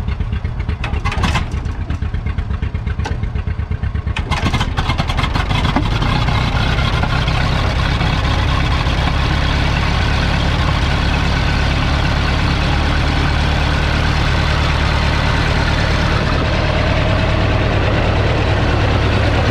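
1943 Fordson Model N's 4.4-litre four-cylinder petrol/TVO engine running with a steady low beat, with a few sharp clicks early on. About four seconds in it picks up to a louder, fuller run and then holds steady.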